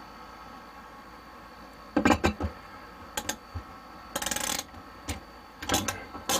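Hammer striking nails: a quick cluster of blows about two seconds in, then scattered single strikes, with a short scraping rustle in between, over a steady background hum.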